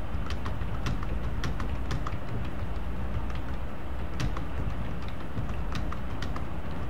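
Computer keyboard keys clicking at an irregular pace, a few keystrokes a second, during a typing-speed test, over a steady low hum.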